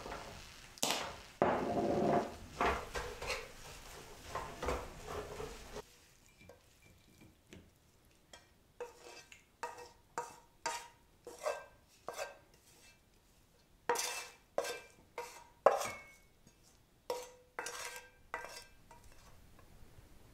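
Wild greens sizzling in a frying pan while a wooden spatula stirs and knocks against it. About six seconds in the sizzle stops, and a series of sharp knocks and scrapes follows, some with a brief ring, as the spatula scrapes the greens out of the pan onto a ceramic plate.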